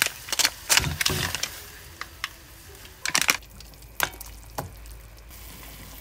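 Kitchen clatter of cooking in a stainless steel saucepan: irregular sharp clinks and knocks as ingredients and utensils touch the pot. The clinks are thickest in the first second and a half, with a few more spaced out after.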